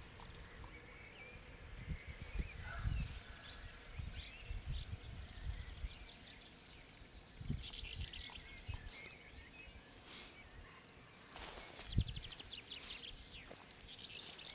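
Small birds chirping and twittering, with a fast trill about eight seconds in, over a low rumble on the microphone; a single soft knock about twelve seconds in.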